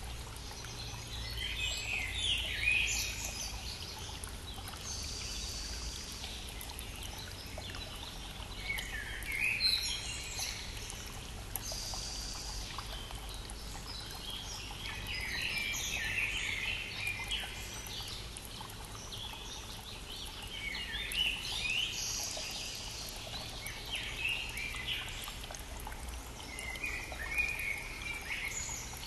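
Songbirds singing over the steady rush of a flowing stream. Song phrases come back every five or six seconds.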